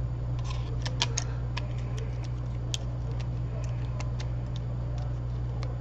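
Light, irregular clicks and taps of small tools and phone parts being handled during a phone repair, over a steady low hum.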